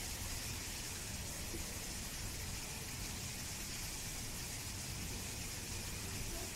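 Steady background hiss over a low rumble, even throughout with no distinct events.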